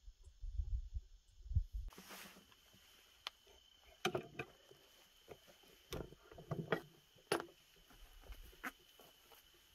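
Irregular soft rustling with scattered light knocks and taps, starting about two seconds in after a low rumble. A faint steady high tone runs under it from that point on.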